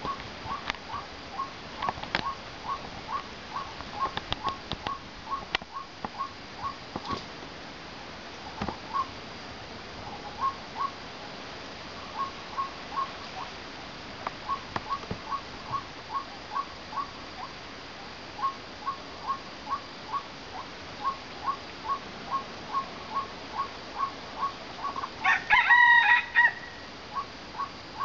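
White-breasted waterhen calling: a long series of short, even notes, two or three a second, that thins out briefly in the middle. Near the end comes a louder, harsher call.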